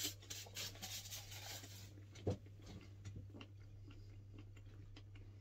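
Faint chewing of a fried cheese bite, with small rubbing and clicking sounds and one short knock about two seconds in, over a low steady hum.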